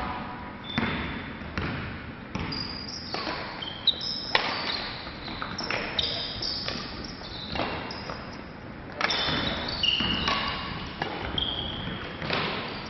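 Badminton play on a wooden sports-hall floor: sneakers squeak in short high chirps, some sliding in pitch, amid repeated sharp racket hits and thuds, echoing in the large hall.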